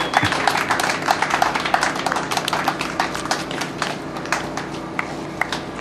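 A small crowd applauding, many hands clapping at once, thinning out toward the end.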